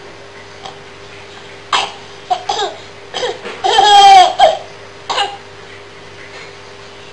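Baby laughing in short high-pitched bursts, with one longer, louder squealing laugh about four seconds in, over a faint steady hum.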